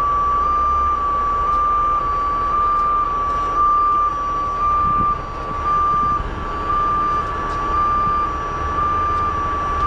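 Crane warning alarm sounding continuously: a loud electronic tone that steps back and forth between two close pitches about twice a second, over the low rumble of the crane's engine running.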